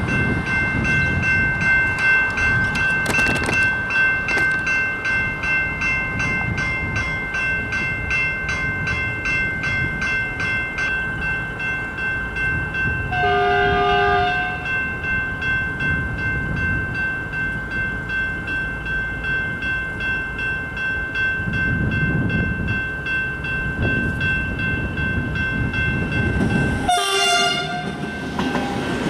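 Level-crossing E-type electronic bell ringing steadily with rapid repeated strokes, over gusty wind noise. A V/Line VLocity diesel railcar's horn sounds one blast of about a second and a half roughly halfway through, and a second, shorter blast with a pitch bend near the end as the train approaches.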